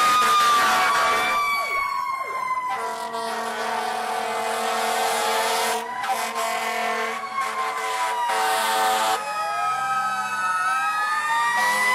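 Fire truck sirens wailing as several fire engines pull out in a line. Overlapping siren tones rise and fall, one slowly winding down in pitch, and a steady held tone sounds from about three to nine seconds in.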